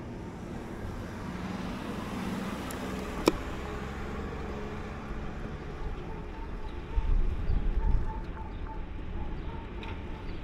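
Town street ambience with car traffic: a car approaching along the road, with a single sharp click about three seconds in and a low rumble swelling around seven seconds in.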